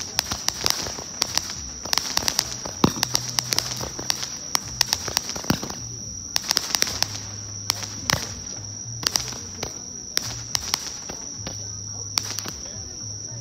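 Small toy firework fountain spraying sparks, with many sharp, irregular crackling pops. A steady high-pitched whine sits underneath.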